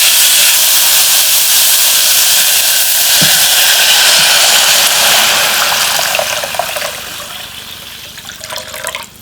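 Water running in a steady rushing stream, fading away over the last few seconds, with a few light clinks near the end, as water is measured out for the soup pot.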